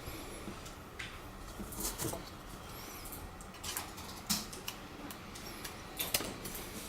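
Scattered light clicks and rustles, as of small objects being handled, over a low steady background hum.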